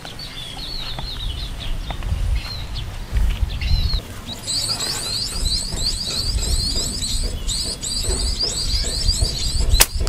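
Small birds chirping in quick, high twitters, which grow dense and continuous from about halfway in, over a low rumble. Just before the end comes a single sharp snap of a slingshot being shot.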